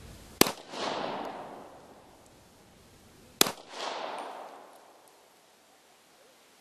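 Steyr-Hahn M1912 pistol firing two shots about three seconds apart, each followed by a long rolling echo that fades over a second or so.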